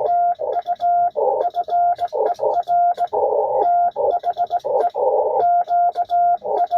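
Morse code (CW) on a ham radio: a single steady tone keyed rapidly on and off in dits and dahs. A hiss of band noise fills the gaps between the elements.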